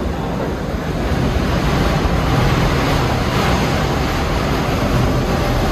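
New York City subway train moving through the station: a loud, steady rush of wheel and air noise with no clear rhythm.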